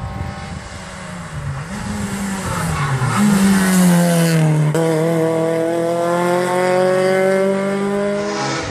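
Renault Clio rally car at full throttle, its engine note climbing as it approaches and passes close by about four seconds in, dipping in pitch as it goes past, then rising steadily again as it accelerates away.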